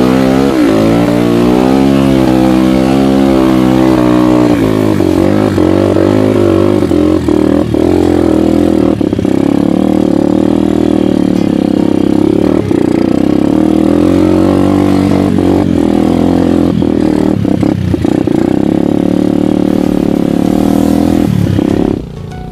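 Dirt bike engine revving up and down as it climbs a rough uphill trail, with occasional knocks from the ride. The engine sound cuts off suddenly near the end.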